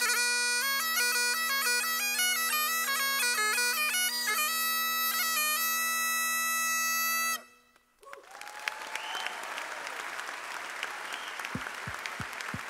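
Great Highland bagpipe playing a tune on the chanter over its steady drones, all of it cutting off together about seven seconds in as the tune ends. After a brief silence an audience breaks into applause, with a cheer.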